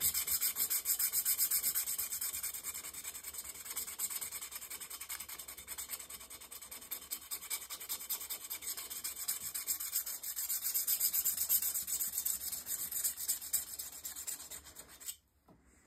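EZE-Lap diamond honing paddle rubbed in quick back-and-forth strokes along the steel bevel of a TwoCherries drawknife, a steady dry scraping that stops shortly before the end. This is the initial honing, working out grinding scratches that still reach the very edge.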